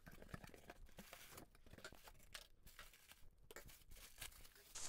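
Faint, irregular rustling and crinkling of packing material: cardboard box flaps folded open, tissue paper pulled aside and a plastic bag packed with jewelry handled.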